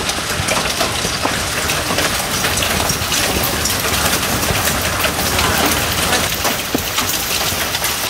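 Heavy rain mixed with hail pelting down steadily, with many sharp ticks from hailstones striking.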